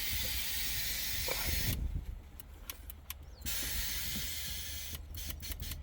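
Steady hissing in two long stretches, the second starting about three and a half seconds in, with a few light clicks in the quieter gap between them.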